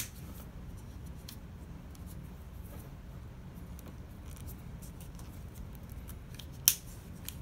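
Snap-shut cover doors of a plastic CNC drag chain (cable carrier) clicking closed over a wire as they are pressed down by hand: a few sharp plastic clicks, the loudest near the end, with faint handling between.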